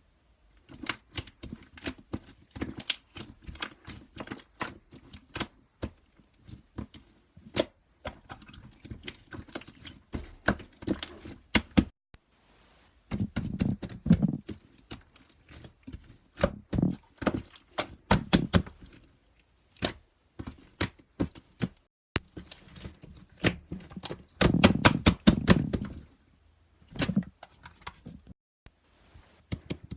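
Rapid, irregular clicking and tapping from small objects being handled close to the microphone, in clusters with short pauses. The loudest, densest stretches come about a third of the way in and again past the three-quarter mark.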